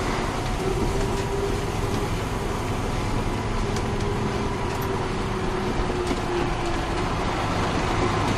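Cat 3406 diesel engine of a 1994 Ford L9000 truck running steadily as the truck drives along, with road and wind noise, heard from a camera on the hood.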